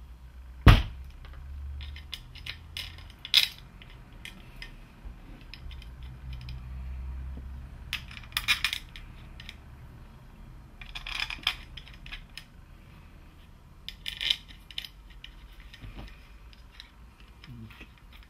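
Clicks, knocks and metallic clinks of a VW TRW ABS unit (3C0 614 109 C) being handled on a bench as its electronic control module is fitted back onto the hydraulic block. There is a sharp knock about a second in, then several short bursts of clinking and rattling.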